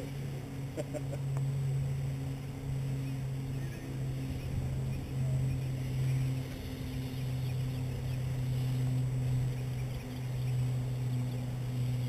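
Honeybee swarm buzzing in the air around the hive box: a steady low hum that swells and fades.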